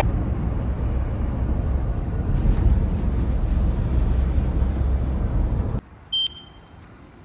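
Steady low rumbling noise, like wind or road rumble, that cuts off suddenly about six seconds in, followed by a short, high electronic beep.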